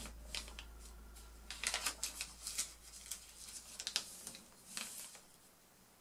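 A4 paper rustling and crinkling as fingers fold it and press the creases flat, in a string of short crisp crackles. They cluster about one and a half to three seconds in, with more sharp ones around four and five seconds.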